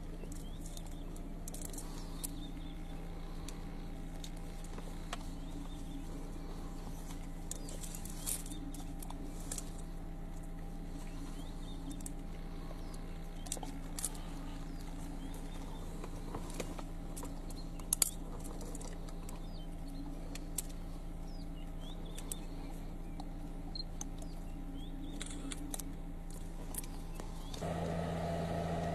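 A vehicle engine idling steadily, with scattered sharp clicks and ticks over it. About a second before the end the engine gets louder.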